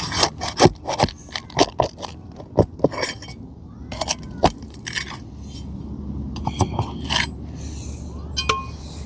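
Metal tool working under asphalt roof shingles to pull roofing nails: a run of sharp clicks, clinks and scrapes, dense for the first few seconds and sparser after that.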